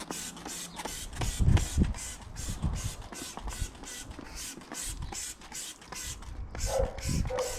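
Trigger spray bottle of Muc-Off bike cleaner being pumped over a mountain bike, a quick hissing squirt about three times a second.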